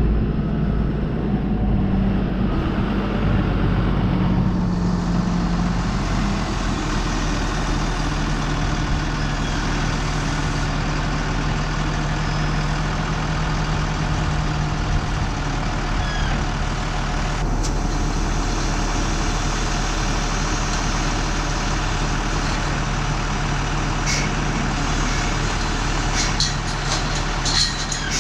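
Tractor engine running steadily under the front-end loader, its revs easing down slightly about six seconds in. A few light clicks or knocks near the end.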